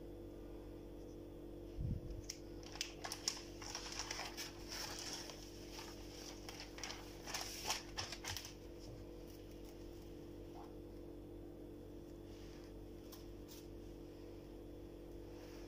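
Light handling sounds as stuffed qatayef are pinched shut and set down on a board: a low thump about two seconds in, then a run of soft clicks, taps and rustles for about six seconds, which then dies away. A steady low hum runs underneath.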